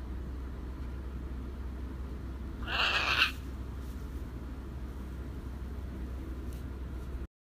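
Blue-and-gold macaw giving one short squawk, about half a second long, around three seconds in.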